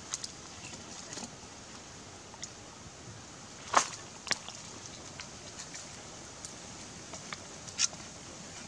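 Dry firewood sticks being handled and shifted against stones while laying a fire, giving scattered sharp clicks and knocks over a steady hiss; the loudest knock comes a bit under four seconds in.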